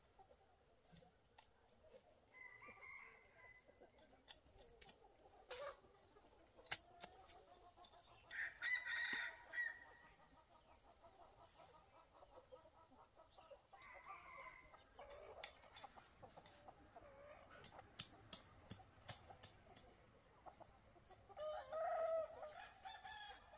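Faint chickens clucking at intervals and a rooster crowing, the loudest call coming about eight seconds in, with scattered light clicks between the calls.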